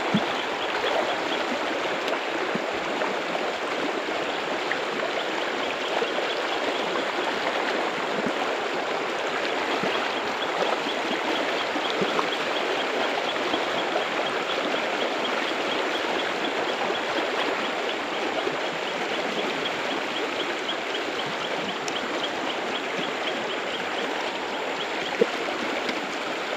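Shallow, rocky stream rushing over stones in a riffle, a steady rush of water, with a single sharp click near the end.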